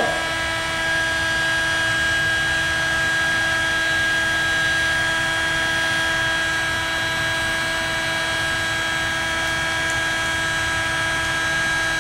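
Electric heat gun running steadily on its highest setting: an even rush of blown air with a steady whine from its fan motor.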